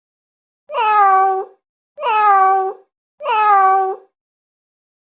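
Domestic cat meowing three times, the meows about a second apart, each a drawn-out call that dips slightly in pitch at the start and then holds.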